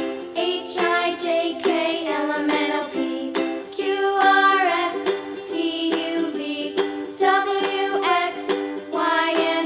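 Upbeat children's background music with a plucked ukulele-like accompaniment and a sung melody line.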